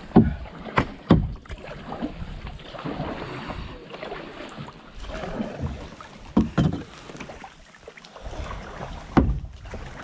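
Paddles working the water of a small paddled boat on a river, with a steady wash of water and several sharp knocks: three in the first second or so, two close together about six and a half seconds in, and one near the end.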